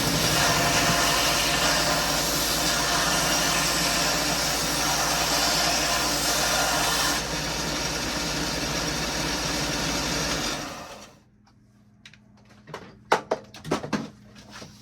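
Wen benchtop belt-and-disc sander running with a steady motor hum and a gritty sanding hiss that eases about seven seconds in. It is switched off after about ten seconds and spins down within a second, and a few sharp knocks and clicks follow.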